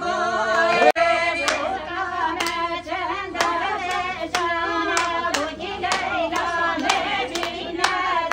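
A group of women singing together, with hand clapping in a steady beat of about two claps a second.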